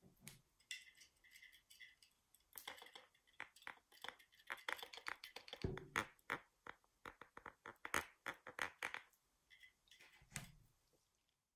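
A rapid run of small clicks, taps and rattles, densest in the middle, with a few short squeaks near the start and again near the end.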